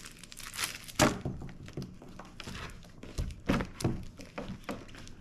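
Card sheets and a ring binder being handled on a table: rustling and scraping with several knocks and thuds. The sharpest knock comes about a second in, and a cluster of lower thuds follows a little after three seconds.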